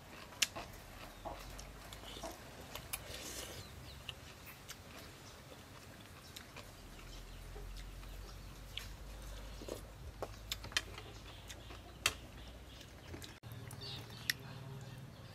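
A metal spoon clinking against a ceramic soup bowl a few times during eating, with chickens clucking in the background.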